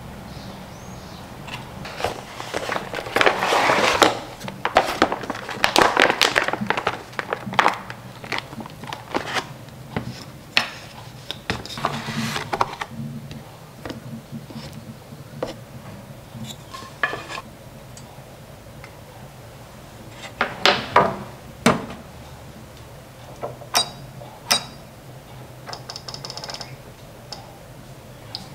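Kitchen handling sounds as frozen croissants are unpacked: a cardboard carton and plastic bag rustling, with scattered light knocks and clicks as pieces are set on a wooden plate. The rustling is loudest a few seconds in and again around the middle.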